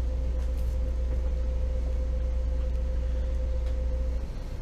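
A trawler yacht's inboard diesel engine running steadily under way, heard in the wheelhouse as a low drone with a steady whine above it. About four seconds in, the drone and whine drop as the throttle is pulled back.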